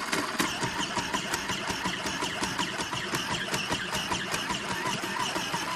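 Cook's Essentials electric mandoline slicer's motor running steadily while its large grater blade shreds soft cheese, with a fast, even rattle of ticks over the motor noise.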